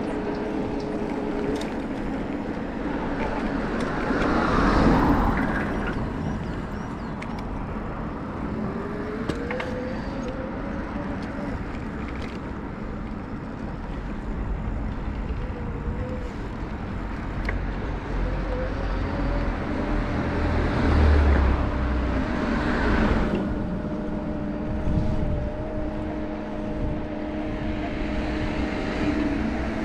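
City road traffic heard from a moving bicycle. Vehicles pass close by about three times, each one swelling up and fading away, over a steady engine hum. Twice an engine note rises as a vehicle pulls away.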